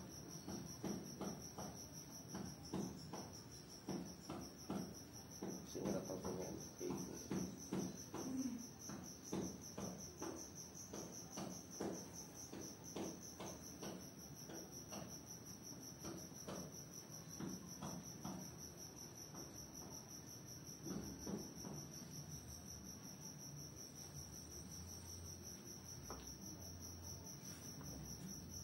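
A cricket chirring steadily at a high pitch, with soft rhythmic rubbing and pressing strokes of hands massaging the body about once or twice a second, thinning out after about twenty seconds.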